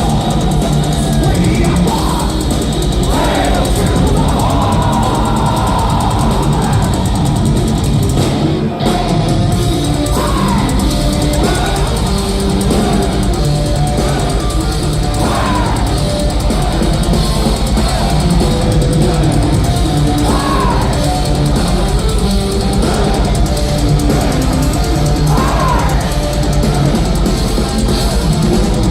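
Thrash metal band playing live: distorted electric guitars and bass over a pounding drum kit, with a sustained guitar melody on top.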